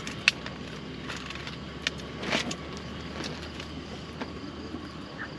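Steady low rumble of road traffic from a nearby main road, with scattered small clicks and a brief swell of noise about two seconds in.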